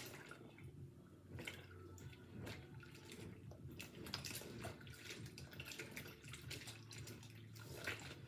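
Faint splashing and sloshing of water in a kitchen sink as a silicone pop-it fidget toy is washed by hand, with scattered small splashes and drips.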